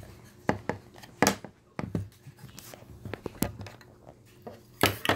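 Irregular handling clicks and knocks from a smartphone being fitted into its stand with a charging cord plugged in, about eight sharp knocks over the few seconds.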